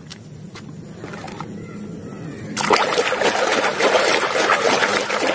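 A hand splashing and churning water in a washing tub to scrub a muddy toy. The splashing starts suddenly about halfway through, after a quieter stretch with a few faint knocks.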